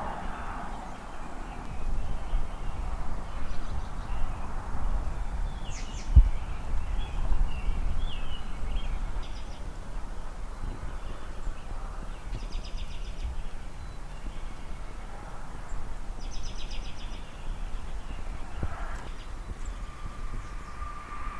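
Outdoor ambience: low wind rumble on the microphone with scattered bird chirps and trills, and one sharp knock about six seconds in.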